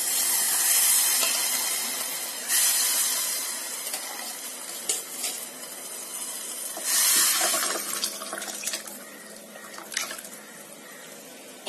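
Tamarind water with tomato and banana stem pieces poured into a hot clay pot of tempering, hissing and splashing as it hits the hot oil. The hiss fades, then flares again about two and a half seconds in and again about seven seconds in as more is poured, with a few light knocks of the vessel.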